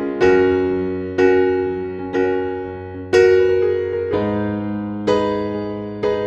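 Background music: a slow electric piano playing chords, one struck about every second, each fading before the next.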